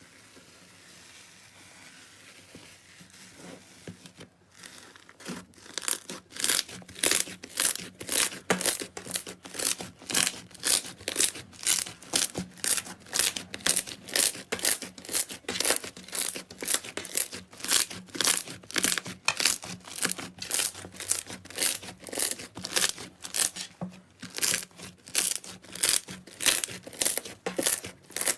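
Slime being squeezed and pressed by hand, making sharp crackling, tearing squishes about twice a second. The squishing starts about five seconds in, after a faint, near-quiet stretch.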